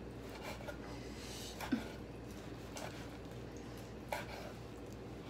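Chef's knife slicing cooked tri-tip beef on a wooden cutting board: a few short knife strokes through the meat, each ending in a soft tap on the board, about a second apart, over a low steady hum.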